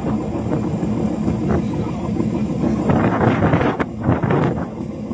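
Fishing boat's engine running steadily, with wind on the microphone. A sharp metallic knock about four seconds in, among a few shorter rattles.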